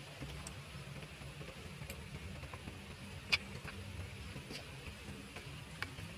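Outdoor ambience: a steady low rumble with scattered faint clicks and ticks, and one sharper click about three seconds in.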